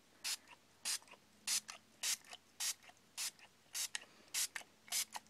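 Plastic trigger spray bottle squirting bleach solution onto a t-shirt: a quick run of about ten short hissing sprays, roughly two a second.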